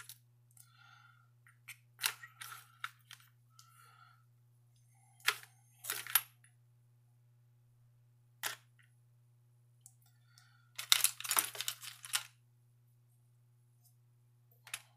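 Small handling sounds as hands pick up Dremel felt polishing pads and fit one onto a mandrel: scattered light clicks and brief rustles, with a denser run of rustling and clicking about eleven seconds in. A faint steady low hum sits underneath.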